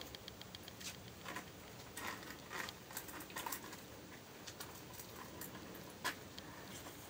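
A springer spaniel × border collie cross moving about on a concrete floor around an egg: scattered light clicks and scuffs of claws and paws, and sniffing. One sharp click about six seconds in, as she mouths the egg.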